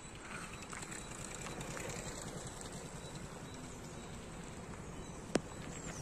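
Low, irregular rumbling background noise on the microphone, with one sharp click a little after five seconds in.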